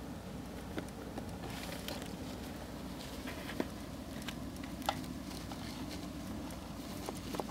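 Syrian hamster scrabbling through shredded-paper bedding: light rustling and scattered small clicks and taps, two of them sharper about three and a half and five seconds in, over a steady low hum.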